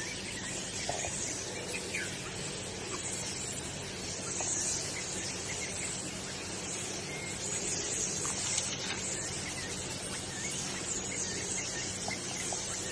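Outdoor nature ambience: a steady insect-like hiss that swells and fades every couple of seconds, with scattered short bird chirps.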